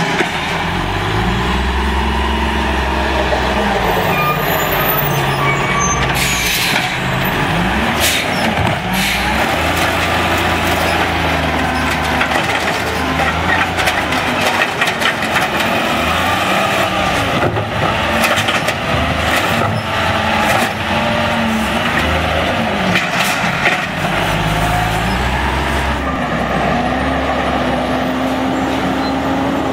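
Automated side-loader garbage truck's diesel engine revving up and down again and again while its hydraulic arm lifts and dumps a curbside cart. Sharp clanks and short hisses of air come through. Near the end the engine holds a steady climbing note as the truck drives off.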